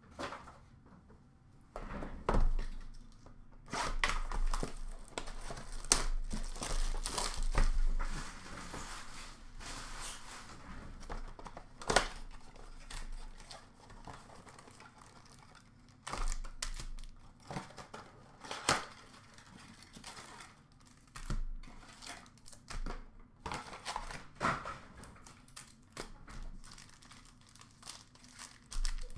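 A hockey card mega box and its foil card packs being opened by hand: irregular crinkling and tearing of wrapper and cardboard, with a few sharp clicks.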